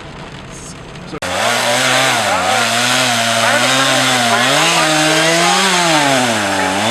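A second or so of steady hiss, then an abrupt cut to a loud two-stroke chainsaw running, its pitch repeatedly rising and falling as it is worked through wood.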